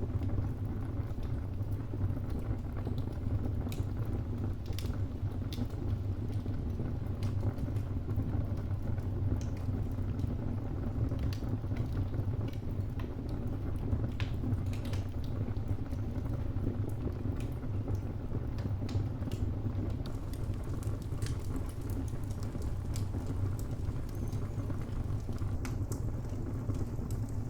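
Wood fire burning, with a steady low rush under irregular sharp crackles and pops from the burning logs.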